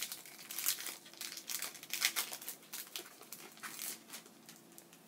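Foil booster-pack wrapper of a Pokémon trading card pack crinkling and rustling as it is torn open by hand, in a string of short irregular crackles.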